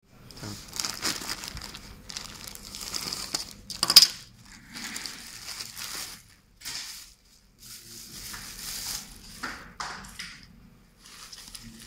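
A plastic courier mailer being torn open and the bubble wrap inside crumpled and crinkled by hand, in irregular rustling bursts with short pauses. The loudest is one sharp crackle about four seconds in.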